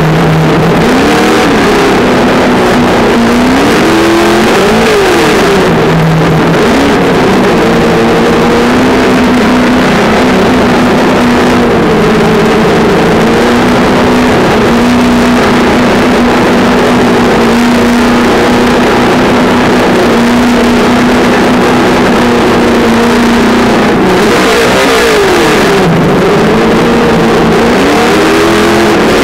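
Traxxas Slash 2WD RC truck's brushed electric motor and drivetrain whining, heard from a camera riding on the truck, over a constant rough noise of its tyres on asphalt. The whine rises and falls in pitch as the truck speeds up and slows in the first few seconds and again near the end, and holds a steady pitch while it cruises in between.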